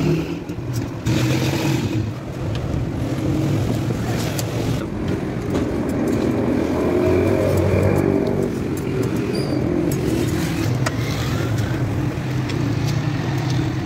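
Motorcycle engine running, its pitch rising and falling a little.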